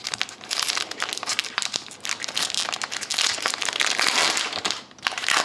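Plastic trading-card pack wrapper being crinkled and torn open by hand, a dense run of irregular crackles with a brief pause near the end.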